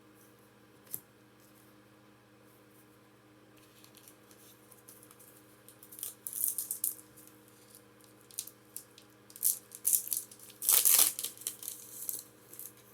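Foil booster pack wrapper crinkling and tearing as a Pokémon card pack is opened by hand, in several rustling bursts with the loudest near the end, after a single click about a second in.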